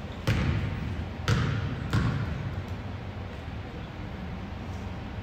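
A basketball bouncing on a gym's hardwood court, three echoing bounces in the first two seconds, over a steady hum of gym noise.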